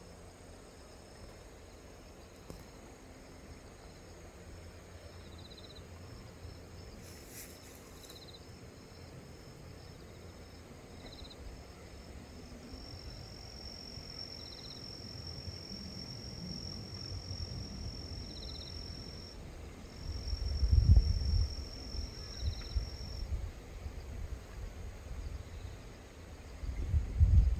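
Insects calling: a thin, high, steady buzz that comes and goes, and a short chirp repeating about every three seconds. Low rumbling bumps on the microphone grow louder in the second half, loudest about twenty seconds in and near the end.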